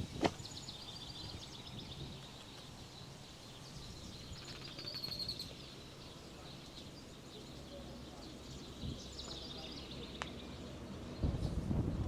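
Small birds chirping in short, rapid high trills three times over steady outdoor background noise, with one sharp click near the start.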